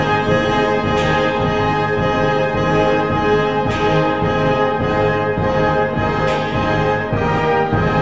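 Background instrumental music of held, sustained chords that change every couple of seconds.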